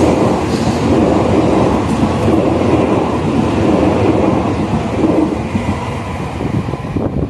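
Tokaido Shinkansen N700-series train running close past, a loud steady rumble of wheels and running gear on the rails. It eases slightly near the end as the last car goes by.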